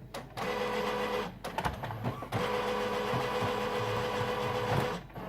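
Epson WorkForce WF-3620 inkjet printer running its power-on start-up cycle: its motors whir steadily in two stretches, a short one of about a second and then a longer one of about two and a half seconds, with a few clicks in between.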